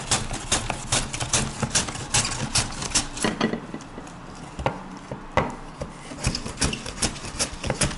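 Half a head of white cabbage rubbed back and forth over the blades of a wooden hand cabbage shredder, cutting it into fine shreds. It makes a run of short strokes, about three a second. The strokes thin to a couple of single ones a little past the middle, then pick up again.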